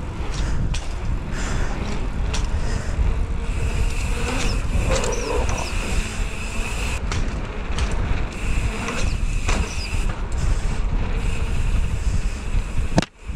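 Wind rushing over a bike-mounted action camera's microphone, with tyre noise from a mountain bike rolling on asphalt and occasional short knocks and rattles over bumps.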